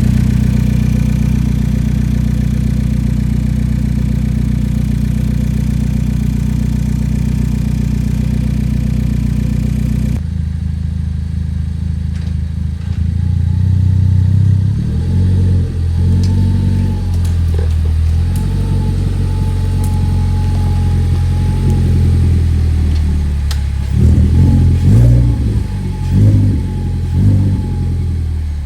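Ford Focus engine running through a 'grass burner' exhaust, holding a steady idle for about ten seconds. It then cuts to the engine idling unevenly, with several short revs near the end.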